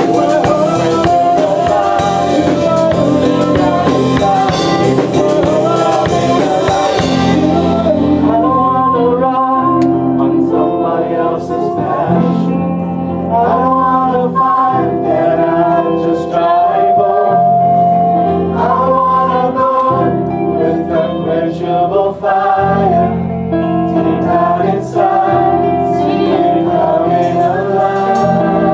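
Live gospel worship music: a group of singers with a band. The drums and cymbals play for the first seven seconds or so, then drop out, leaving the singing over sustained instrumental chords.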